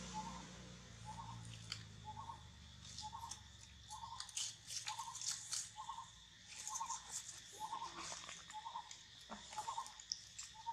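Faint short chirps of a small animal, all at one pitch and repeated about twice a second, over scattered crackling of dry leaf litter as the monkeys shift and crawl on it.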